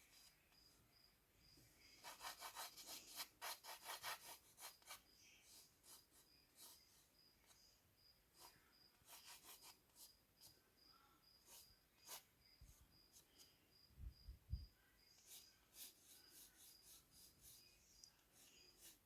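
Faint pencil strokes scratching on paper, a quick run of them a couple of seconds in, then scattered strokes. Behind them a cricket chirps steadily at about two to three chirps a second.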